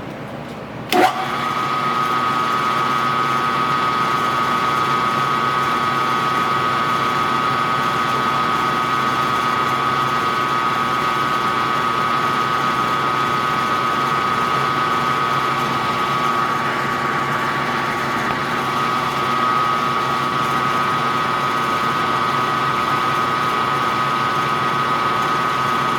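Small drilling machine's spindle running with a sensitive drill chuck, drilling a small hole. A sharp click comes about a second in, after which it runs louder with a steady high whine.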